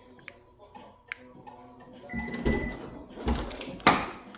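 2015 Subaru Outback power liftgate operating from the remote: a few faint clicks, then a steady high beep with its motor running, and two loud knocks near the end as the hatch stops partway up. The owner blames worn hatch lift supports and a clicking liftgate motor or prop rod.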